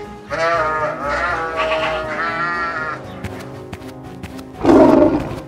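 A flock of sheep bleating, several overlapping calls with a wavering pitch, over background music. Near the end comes a short, loud, rough growl from the tiger.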